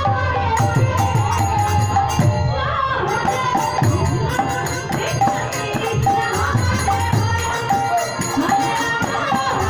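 Live kirtan: a singer chants a devotional melody through a microphone over khol barrel drums, a harmonium and jingling hand cymbals keeping a steady beat.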